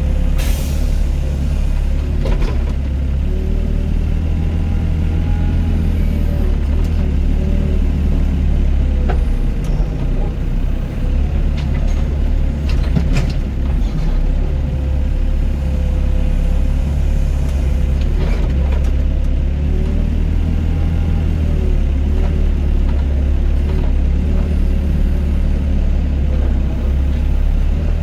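Doosan DX55 mini excavator's diesel engine running steadily under working load, its pitch wavering as the hydraulics dig and swing. A few sharp knocks of the bucket and earth sound through it.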